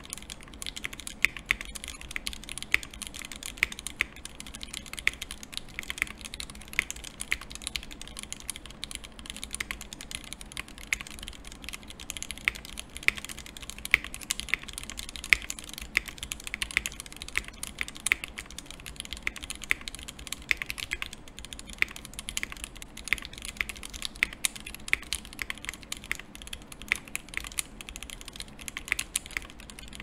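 Steady fast typing on a freshly built Klippe T 60% custom mechanical keyboard with factory-lubed JWK switches: an unbroken stream of keystroke clacks, a typing test of the new build.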